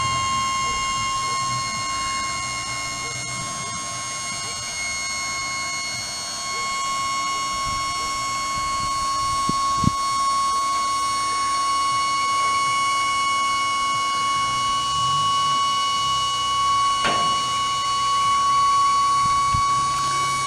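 Truck warning buzzer sounding one steady, unbroken high tone, with an engine idling underneath. A short knock comes about ten seconds in and another about seventeen seconds in.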